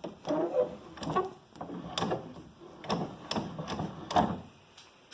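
A metal bench vise being handled and worked by hand: an irregular series of scrapes and knocks as the handle and sliding jaw are moved.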